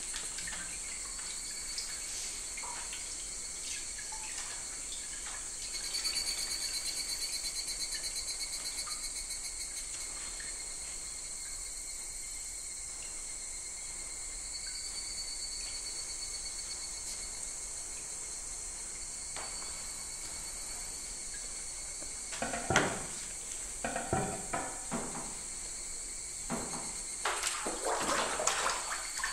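Crickets chirring steadily, with a pulsing trill for a few seconds about six seconds in. Near the end a sharp knock, then water sloshing and splashing at a papermaking vat.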